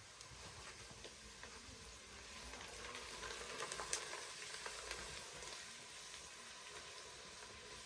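Food frying in a pan: a faint, steady sizzle with scattered crackles, growing a little louder in the middle.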